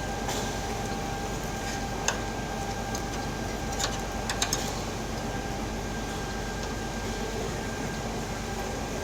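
Steady machine hum, like a fan or compressor running, with a few short clicks about two, four and four and a half seconds in.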